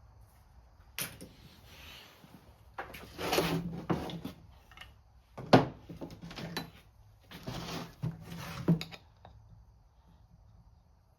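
Handling sounds from work on a chainsaw's recoil starter: a string of sharp knocks and clicks mixed with short scraping bursts, the loudest knock about five and a half seconds in, dying away near the end.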